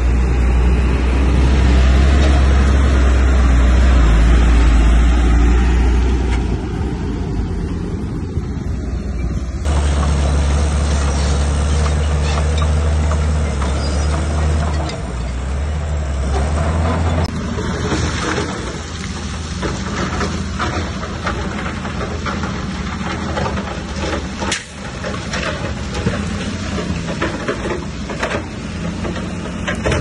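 Bulldozer's heavy diesel engine running under load, a deep steady drone, with scattered clanks and knocks in the second half. The sound shifts abruptly about ten seconds in.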